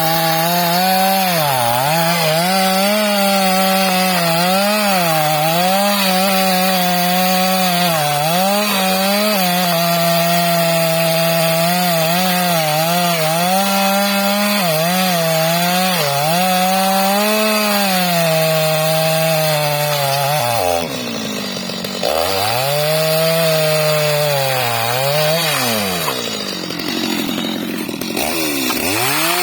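Stihl MS 250 two-stroke chainsaw running at high revs while cutting wood, its pitch wavering up and down as the chain loads in the cut. About two-thirds in and again near the end the engine pitch drops sharply and recovers as the saw bogs under load.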